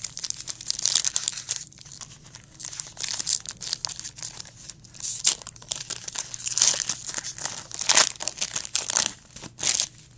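Trading card pack wrapper crinkling and tearing as it is opened by hand: a run of irregular crackly rustles.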